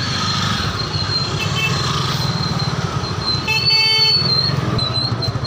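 Busy street traffic with engines running, and a vehicle horn tooting: a short beep about one and a half seconds in, then a louder horn blast lasting about a second a little past the middle.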